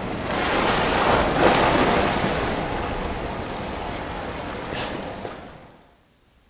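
Ocean surf washing on a sandy beach: a wash of noise that swells in the first couple of seconds, then slowly fades out near the end.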